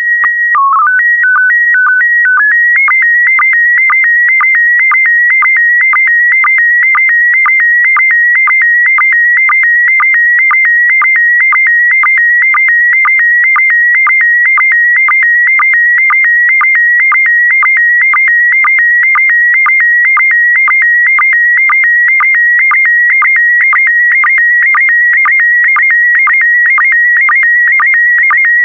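Slow-scan television (SSTV) signal in PD120 mode. It opens with a couple of seconds of stepped header tones, including a brief low dip. Then comes the image scan: a loud, fast-warbling tone jumping around 2 kHz, broken by a short low sync pulse about twice a second.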